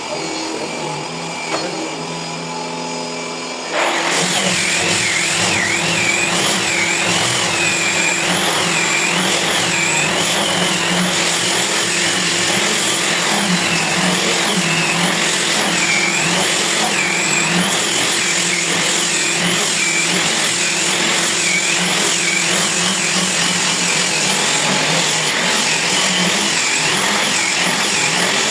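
Grinder running, then about four seconds in it bites into the material and gets much louder: a harsh grinding noise with a motor whine that keeps rising and falling as the load on it changes.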